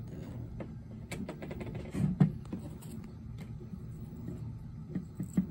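Light clicks and taps of a disassembled Solex 28 PICT-1 carburetor and its small metal parts being handled on a workbench, with a louder knock about two seconds in and another near the end.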